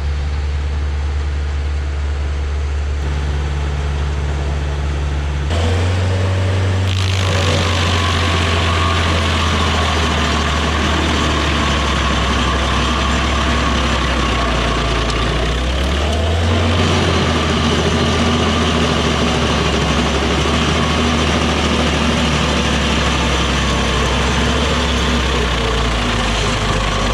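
Stump grinder running with its engine throttled up, then its cutter wheel chewing into a fresh, hard stump about seven seconds in, a steady grinding rush of wood chips over the engine. The engine drops briefly about two-thirds of the way through and picks back up.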